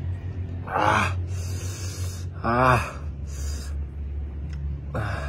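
A man gasping and breathing sharply through his mouth while eating, with three short voiced gasps about a second, two and a half seconds and five seconds in. A steady low hum runs underneath.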